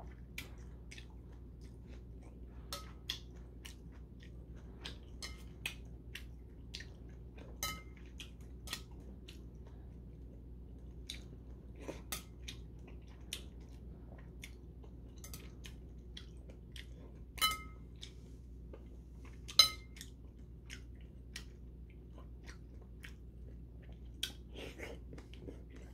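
Close-up chewing and mouth sounds of a man eating spicy mixed noodles with whelk and shiitake mushroom: many soft, wet clicks. About two-thirds of the way through come two louder ringing clicks, metal chopsticks against the porcelain bowl, over a faint low hum.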